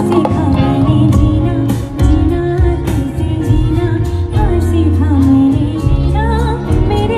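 A woman singing live with band accompaniment: an ornamented vocal line sliding between notes, over steady bass and a regular percussion beat.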